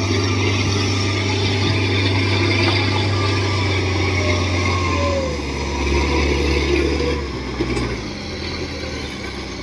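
Engine of a tracked farm cart hauling a full load of rice sacks across a muddy paddy, running steadily; its note drops lower about five seconds in and it grows a little quieter near the end.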